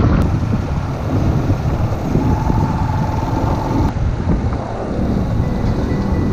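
Heavy wind rumbling on the microphone over the noise of a running vehicle, steady and loud, with a faint steady whine in the middle.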